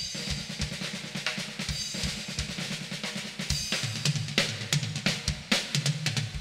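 Drum kit solo starting abruptly: rapid snare and tom strokes over bass drum kicks, with Sabian and Zildjian cymbals and hi-hat ringing over the top.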